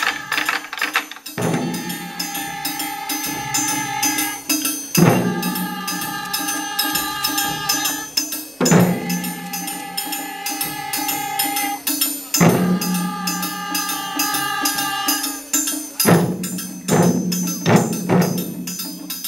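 Taiko drum ensemble playing: drum strikes with clacking, jingling hand percussion. Over the strikes a long held melodic note comes back about every three and a half seconds, and near the end the strikes grow denser with no held note.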